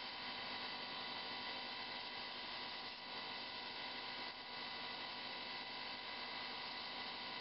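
Wood lathe running steadily with a hum while sandpaper is held against a small spinning Honduran mahogany plug, giving an even hiss.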